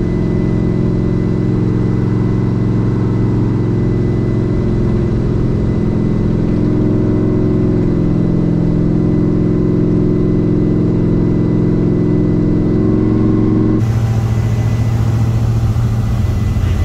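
Engine and road noise heard from inside a vehicle cruising steadily on a speedway lap, the engine drone rising a little in pitch midway. About fourteen seconds in it cuts abruptly to a different, lower vehicle-cabin hum.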